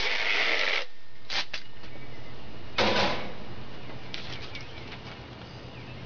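Packing tape being pulled off its roll: a strip lasting just under a second at the start and a shorter pull about three seconds in, with a few faint clicks between.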